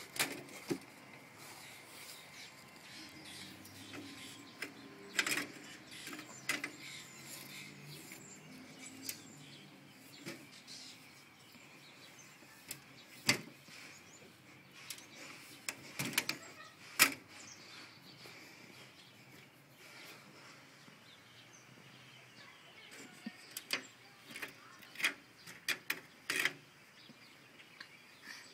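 Scattered sharp knocks and clacks, a dozen or so spread irregularly, from a plastic pet-door flap swinging against its aluminium frame and a child clambering on a wooden deck. Faint bird chirping runs underneath.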